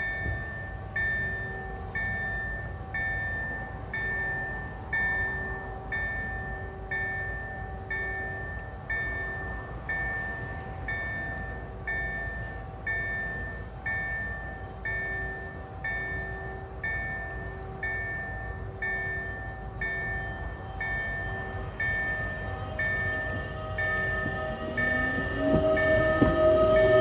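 Level-crossing warning bell ringing, an electronic ding repeated about once a second. Over the last few seconds a Newag Impuls electric multiple unit arrives, its motors whining and rising in pitch as it reaches the camera.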